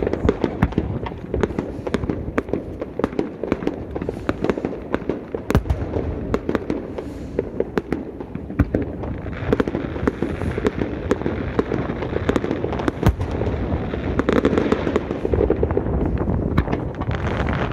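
Fireworks display going off in a dense barrage: many sharp bangs and crackles in quick succession, over a steady rush of blizzard wind.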